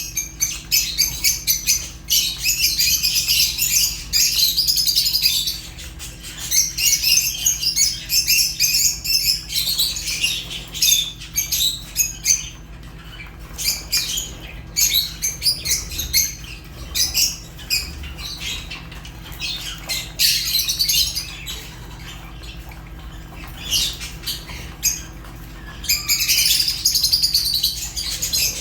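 Lovebirds chattering: rapid, shrill, high chirps in loud bursts lasting a few seconds, with scattered single chirps between the bursts.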